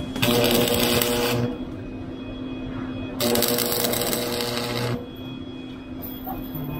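Stick (arc) welding on a steel pipe post: the electrode arc crackles and hisses in two short runs, the first about a second and a half long starting right away, the second about two seconds long starting about three seconds in, with quieter pauses between them.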